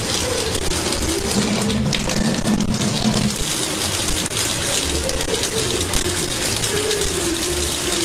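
Kitchen faucet running steadily, a thin stream of water splashing into the sink basin.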